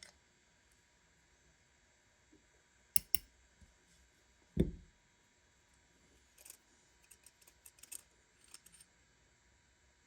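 Sparse light clicks and taps of small metal tools and carburetor parts being handled, with one louder knock near the middle and a patter of small ticks later on.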